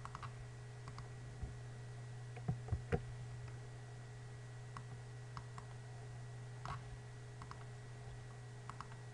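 Scattered computer mouse clicks and keyboard keystrokes, the loudest three close together about two and a half to three seconds in, over a steady low hum.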